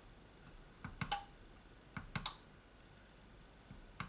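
Repaired smart plug being clicked on and off with its side switch: pairs of short, sharp clicks from the button and the relay inside, three rounds about a second apart.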